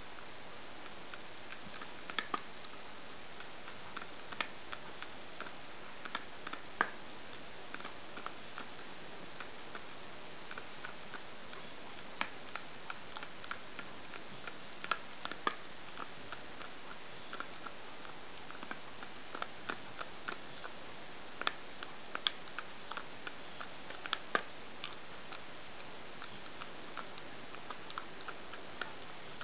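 A dog biting at its own front-paw toenails: irregular sharp clicks of teeth on claws, singly and in quick clusters.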